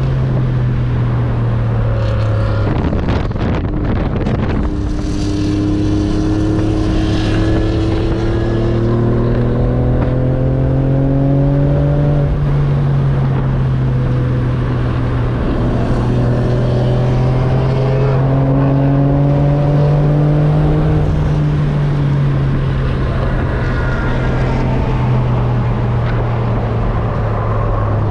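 Porsche 911 (996) Cabriolet's flat-six engine under load on track, heard from the cockpit over road and wind noise. Its pitch climbs steadily under acceleration twice, the second pull easing off about 21 seconds in.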